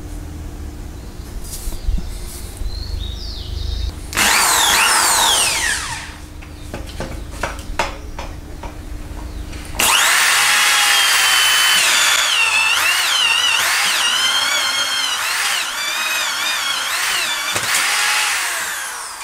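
A power tool's electric motor running in two stretches: a short run of about two seconds with a falling whine, then a longer run of about nine seconds whose pitch wavers up and down as the speed changes, fading near the end. Light clicks and knocks fall between the two runs.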